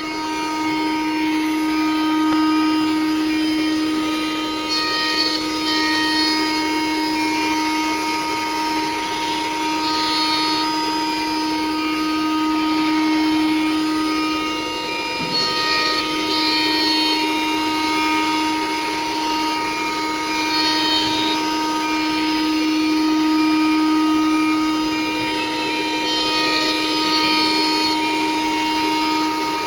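CNC router spindle running while the machine mills a part: a steady motor whine that swells and eases slowly as the cutting goes on.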